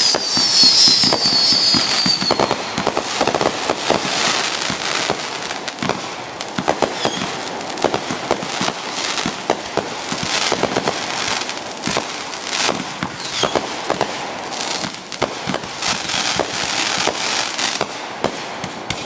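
Consumer fireworks going off in rapid succession, a dense stream of sharp pops and crackling bursts, with a falling whistle near the start.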